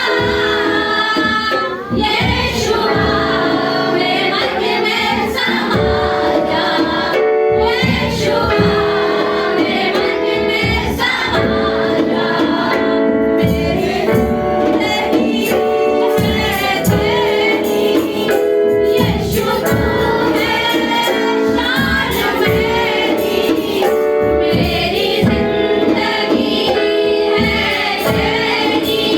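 Congregation singing a Christian worship song, with women's voices leading, over sustained instrumental accompaniment and a steady percussion beat.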